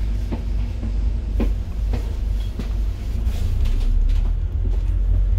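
Scania gas bus on the move, heard from inside: a steady low engine and road rumble with scattered knocks and rattles from the bodywork, growing slightly louder about halfway through.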